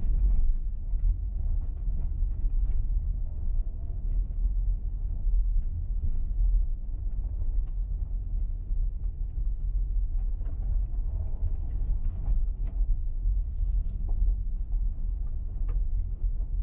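A car driving on a gravel dirt road: a steady low rumble of tyres and engine, with scattered faint ticks and knocks from stones and bumps.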